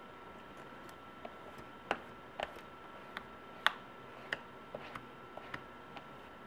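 A plastic squeegee worked over an iPad Mini's freshly applied screen-protector film, giving about a dozen sharp, irregular clicks and taps. A faint steady high hum runs underneath.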